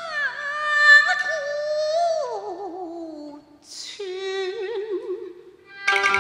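A woman sings a Cantonese opera (yueju) melody in long held notes with vibrato. The first phrase slides down in pitch, and a second phrase begins about four seconds in. Near the end the Chinese instrumental ensemble comes in at full strength.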